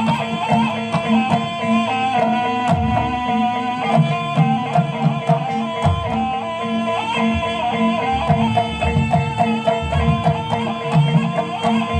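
Traditional Javanese barongan accompaniment music: a wavering, ornamented melody line over repeated low drum beats and a steady held tone.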